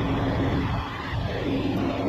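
Semi tractor's diesel engine running steadily with a constant low hum over a rumble.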